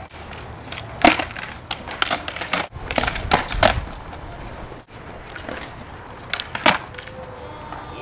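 Skateboard wheels rolling on concrete, with sharp clacks of the board's tail popping and the board landing during flatground tricks: one about a second in, a couple around three and a half seconds in, and another near seven seconds.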